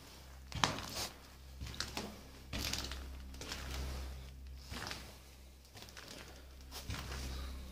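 Footsteps crunching over fallen plaster and debris on a corridor floor: irregular crunches, the sharpest about half a second in, over a low steady rumble.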